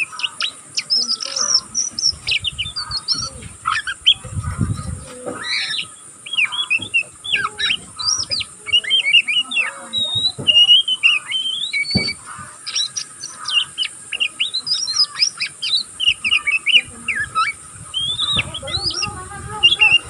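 Young oriental magpie-robin (kacer) chattering in a continuous run of short, quick chirps and twitters, the 'ngeriwik' call of a juvenile still learning its full song.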